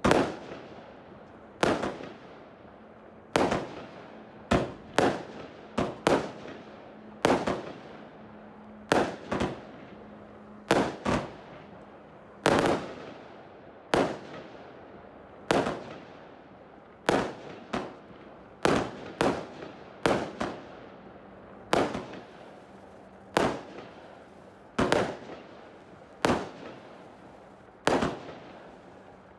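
Lesli 'Empire State Show' 161-shot compound firework cake (battery) firing shot after shot, a sharp bang roughly every second or so, each trailing off quickly.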